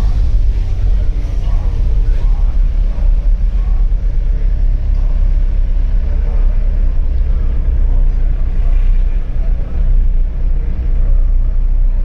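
Steady low rumble of the Darjeeling toy train running, with faint voices in the background.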